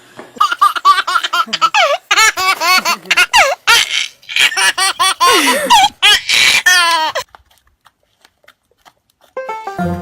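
A small child laughing hard in rapid, high-pitched bursts, which stop suddenly about seven seconds in. Banjo music starts near the end.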